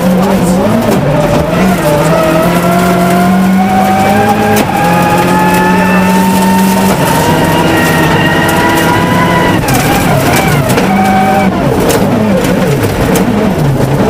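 Ford Focus WRC's turbocharged four-cylinder engine at full effort, heard from inside the cockpit. The revs climb in one long pull, then drop away about ten seconds in as the throttle is lifted, with stones ticking against the car.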